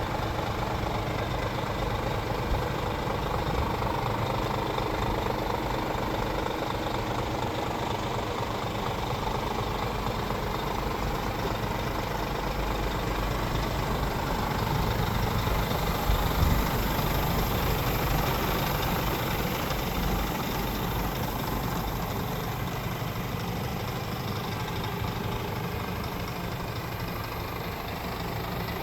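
Diesel engine of a 2016 Scania R410 truck idling steadily, with its engine-driven air compressor running.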